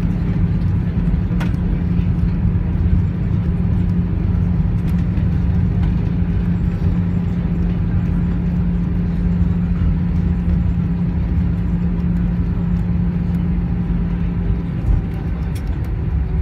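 Cabin noise of an Airbus A320 rolling out on the runway after landing with its ground spoilers raised: a steady loud rumble with a constant low hum that drops slightly in pitch near the end as the aircraft slows.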